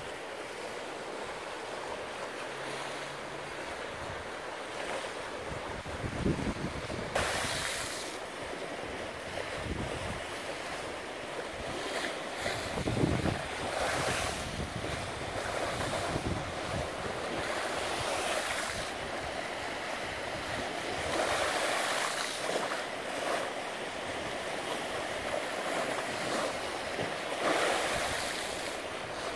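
Small choppy waves breaking and washing up a shore at high tide, the surf swelling every few seconds. Wind buffets the microphone with a few low thumps.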